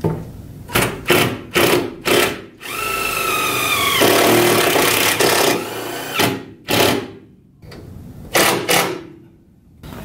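Handheld power drill run in short bursts, with one longer whining run of about three seconds in the middle.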